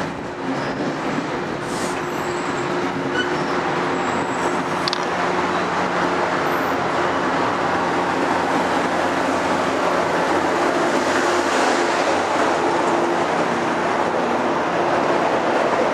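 Train running through the station: a steady rumble of wheels on rail with a low, steady hum underneath, slowly growing a little louder.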